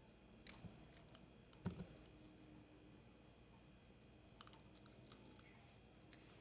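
Small sharp clicks and taps from handling a Swatch watch during a battery change: about half a dozen in the first two seconds, then another short cluster about four and a half to five seconds in.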